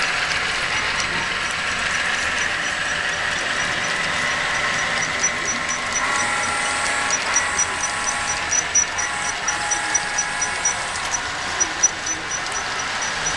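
Model train running along the layout: a steady hum and hiss with faint, even clicks of its wheels over the rail joints, about three or four a second, which grow clearer in the second half.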